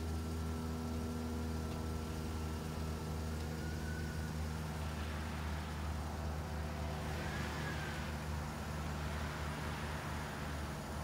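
Minivan engine running steadily while it pulls on a tow rope hitched to a car. A thin high whine rises and falls twice, and a rough hiss swells up in the middle.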